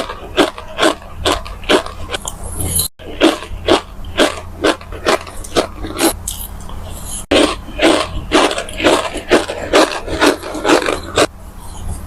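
Starch granules being crunched and chewed in a mouth, a steady run of crisp crunches about three a second, softer for a few seconds in the middle.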